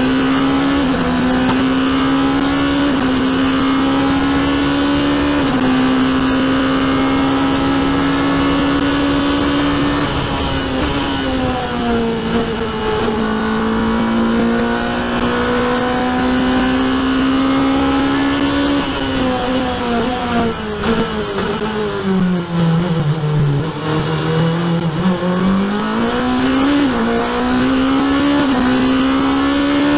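Onboard sound of a sports-prototype race car's engine at high revs on track, its note held high with small drops in pitch at upshifts in the first few seconds. The pitch sinks around ten seconds in and more deeply around twenty seconds in as the car slows for corners, then climbs again as it accelerates.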